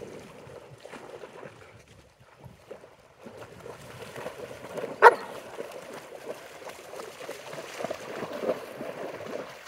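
A dog barks once, sharply, about halfway through, over a continuous noisy background.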